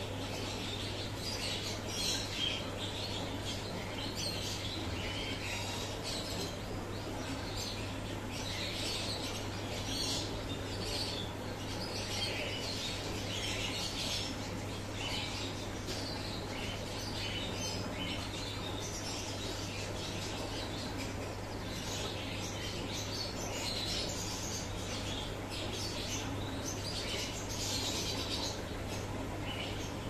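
Birds chirping continuously, many short high chirps overlapping one another, over a steady low hum.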